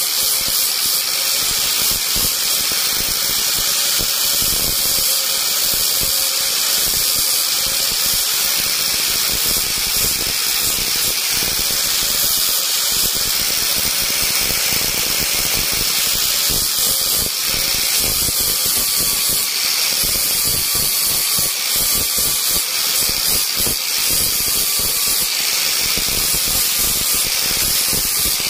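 Small electric carving tool, such as a rotary grinder, running steadily on wood. Its whine wavers slightly in pitch as the load changes.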